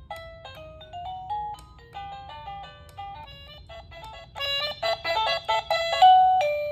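Plug-in receiver of a Mighty Paw Smart Bell 2.0 dog doorbell playing its electronic chime tunes: simple melodies of clean, stepping notes, one tune after another. About four seconds in a faster, busier tune plays, and near the end a loud two-note ding-dong sounds.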